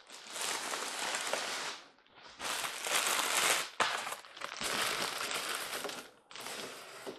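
Clear plastic bag crinkling in several long rustling bouts, broken by short pauses, as it is pulled off a cardboard box.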